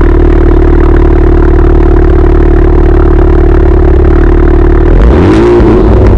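2019 Honda Civic Type R's turbocharged 2.0-litre four-cylinder idling through a Remus exhaust with a 3-inch pipe and three carbon-fibre tips. About five seconds in, the engine is revved once, rising and dropping back to idle.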